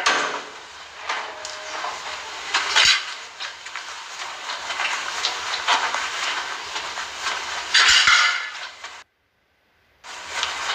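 Scattered clinks and knocks over a steady background noise, with a louder clatter about eight seconds in. The sound then cuts out completely for about a second near the end.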